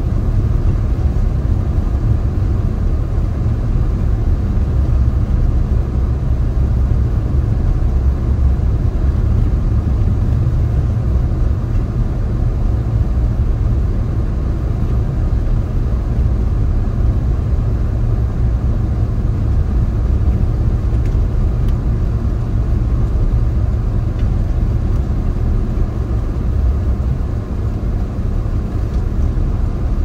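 A car driving at steady speed: an even, low rumble of tyres and engine on the road.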